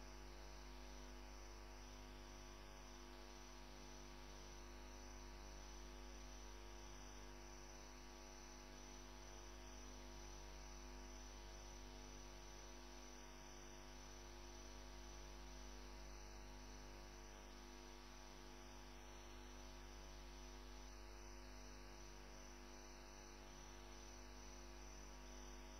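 Near silence, with a steady low electrical hum.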